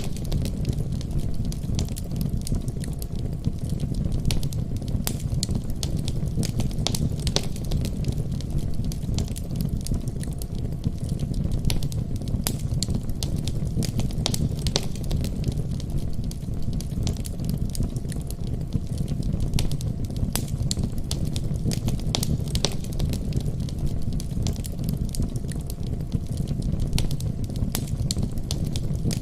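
Wood fire burning in a fireplace: a steady low rumble of flames with many sharp, irregular crackles and pops.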